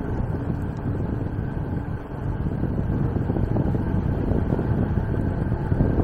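Wind buffeting the microphone of a camera carried on a moving electric bicycle: a steady, low, fluctuating rumble.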